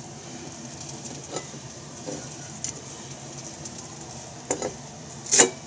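Kitchen knife cutting daikon radish on a cutting board: a few sharp chops, spaced irregularly, the loudest near the end, over a faint steady background hiss.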